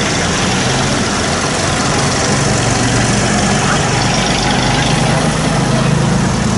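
Engines of vintage tractors running at a slow, steady pace as a line of them drives past, the low engine note growing stronger in the second half.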